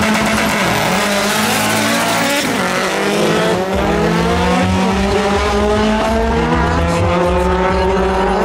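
Two Mitsubishi Lancer Evolution drag cars launching at full throttle, their turbocharged four-cylinder engines revving hard. The pitch climbs and drops back twice in the first few seconds as they shift up, then rises steadily as the cars pull away.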